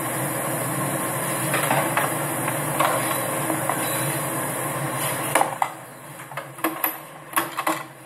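Steady whirring hiss of a hair dryer blowing hot air, which drops away about five and a half seconds in, followed by several light clicks and knocks.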